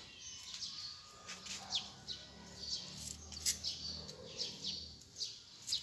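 Small birds chirping: many short, high calls, several sweeping downward, repeated throughout. A faint low hum sits under them for a few seconds in the middle.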